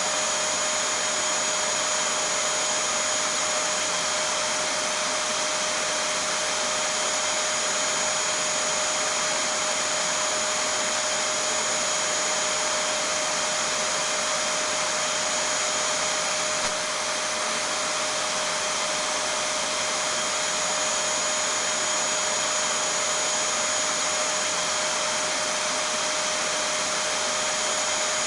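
Vacuum cleaner running steadily: an even rush of air with a constant steady hum tone in it, unchanging apart from a tiny click about two-thirds of the way through.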